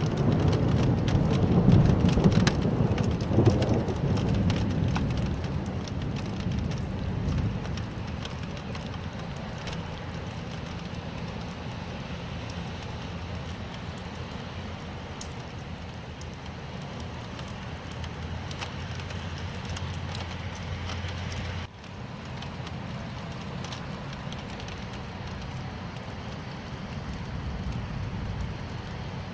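Steady rain falling, an even hiss with scattered drop patter, while a rumble of thunder dies away over the first few seconds. The sound drops out for an instant about three-quarters of the way through.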